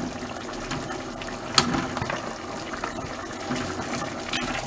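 Liquid bubbling and seething in a cooking pan as a watery tomato base comes up to the boil, with one sharp clink about one and a half seconds in.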